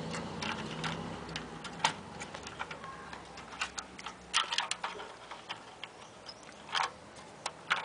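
Irregular sharp clicks and taps from a CPU heatsink being worked free of its retention clip on a motherboard, a few louder clicks among many light ones.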